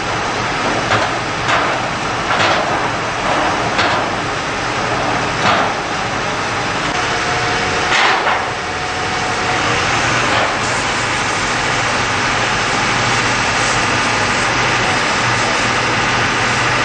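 Fire engines running steadily under a constant hiss, with a string of sharp cracks or knocks in the first half, one every second or two; from about ten seconds in only the steady engine-and-hiss noise remains.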